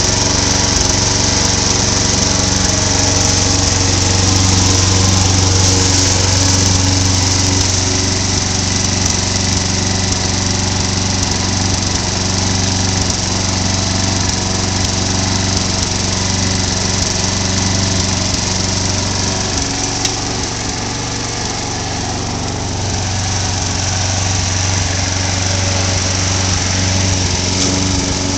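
Gas-powered walk-behind push mower running steadily with an even engine hum, dipping slightly in loudness for a couple of seconds about three-quarters of the way through.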